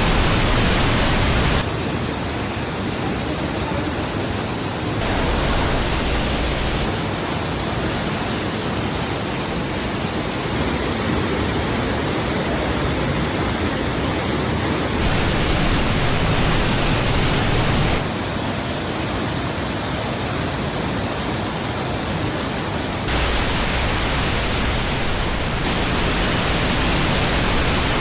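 Samandere Waterfall's water rushing in a steady roar. The sound changes abruptly several times as the recording jumps between spots nearer and farther from the falling water.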